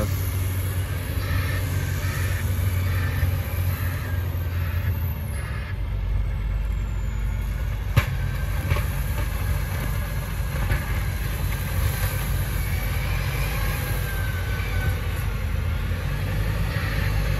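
Engine of a compact sidewalk snowplow tractor running steadily, a low rumble, with a single sharp clank about eight seconds in.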